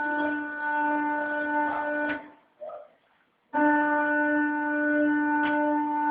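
CNC pantograph's drive motors whining at one steady pitch as the machine cuts polystyrene foam tiles; the whine stops about two seconds in and starts again at the same pitch a second and a half later, as the machine pauses between moves.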